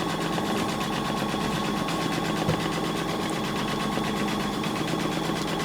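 Embroidery machine stitching at a steady pace: a fast, even rattle of needle strokes with a steady hum under it.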